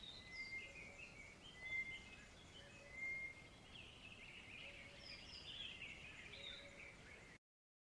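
Faint birdsong: several birds chirping and whistling over each other, with a few short low notes among them. It cuts off suddenly near the end.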